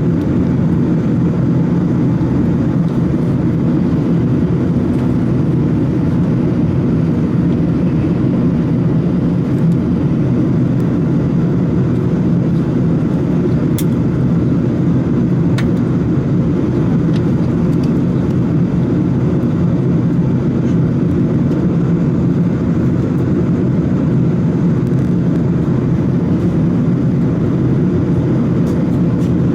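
Steady, unchanging drone inside the cabin of an Airbus A380-800 in flight: engine and airflow noise heard from a window seat.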